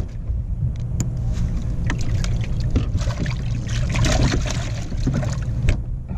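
Water splashing and sloshing, with small knocks, as a crappie is dropped into a boat's live well among other fish, over a steady low motor hum.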